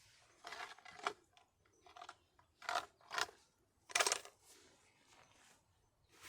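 A handful of short, sharp clinks and knocks, like small hard objects being handled and set down. The loudest comes about four seconds in.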